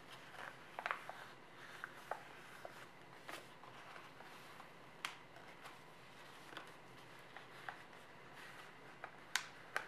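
Sheet of origami paper being folded and handled by hand: faint rustling with scattered crisp crackles, the sharpest about a second in and near the end.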